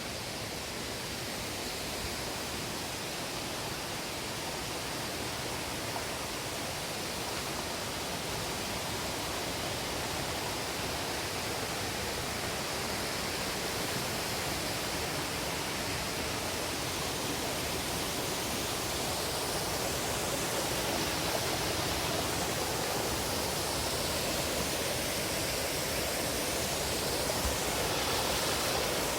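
Waterfall rushing: a steady, even roar of falling water that grows slightly louder over the stretch.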